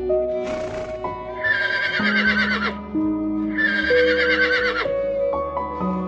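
Two horse whinnies, each just over a second long with a shaky, falling pitch, over soft background music with long held notes.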